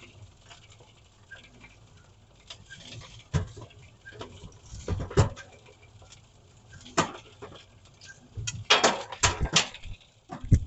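Stones and soil clods tumbling in a rotating wire-mesh trommel drum and dropping out of its end into a metal trailer bed: irregular clattering knocks, with a quick run of louder ones near the end.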